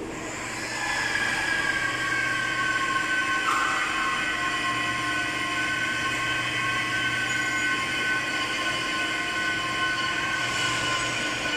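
Aicrane AQ-NLH 10-ton overhead crane running on its test run: a steady whine of several held tones from the travel drives and wheels on the runway rail, getting louder about a second in.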